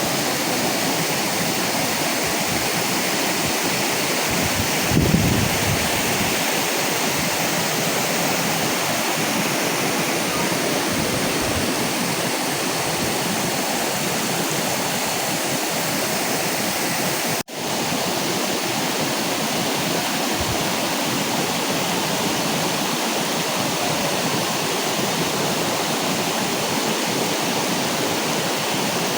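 Waterfall: a steady, even rush of falling water, briefly cutting out about 17 seconds in.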